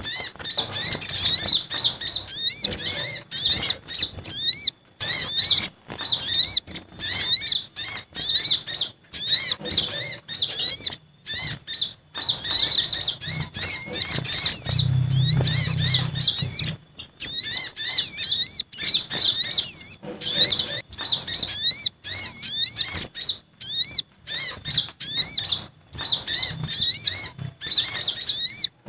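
Sogon and kolibri ninja sunbirds calling agitatedly: rapid bursts of sharp, high chirps and short rising-and-falling twitters, broken by brief pauses, a lure call meant to draw in other birds.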